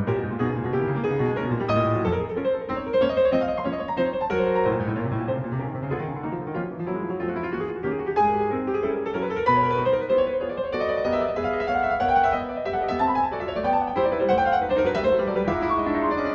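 Background piano music, a gentle melody with chords.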